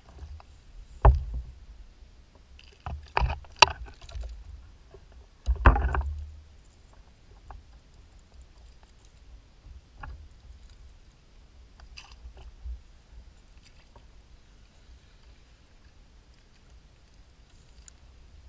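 Water splashing right beside a plastic fishing kayak, with sharp knocks on its hull: the loudest strokes come about a second in, twice around three and a half seconds, and a longer splashing burst around six seconds, after which only a few faint knocks are heard.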